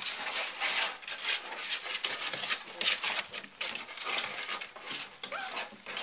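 A litter of English springer spaniel puppies scrambling over one another and chewing at a hand in straw bedding: dense rustling and scratching with a few small whimpers.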